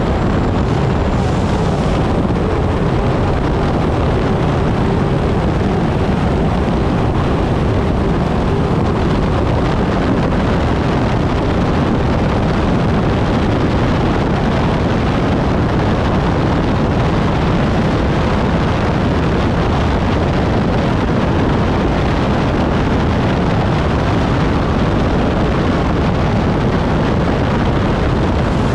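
Onboard sound of a turbine-powered unlimited hydroplane running hard at speed: a steady, loud engine and water rush with wind buffeting the microphone.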